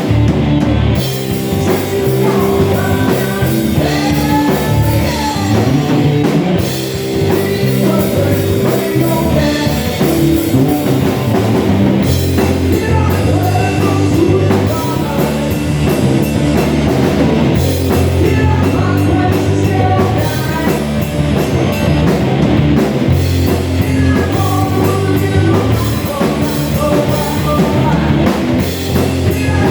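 Rock band playing with drum kit, guitars and a singer: a loud, continuous rock song.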